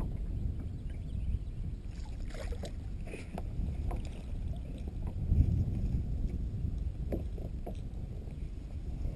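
Water lapping and sloshing against the hull of a bass boat, a steady low rumble, with scattered short knocks and clicks as the angler moves about on the deck.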